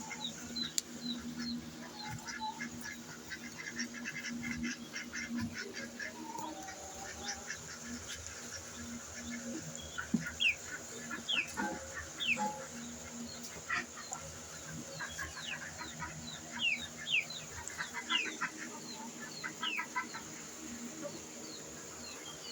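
Desi chickens: many short, falling peeps from chicks, repeated throughout, with hens clucking underneath.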